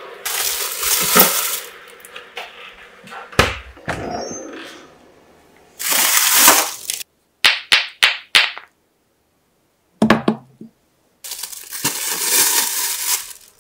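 Plastic bag crinkling and rustling in bursts as bagged pears are pushed into a freezer compartment, with a few short knocks and a dull thump about ten seconds in.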